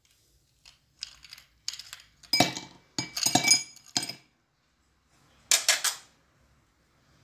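Drinking glasses clinking: a run of clinks and clatters over about three seconds, one ringing briefly, then a shorter burst of clinks about five and a half seconds in.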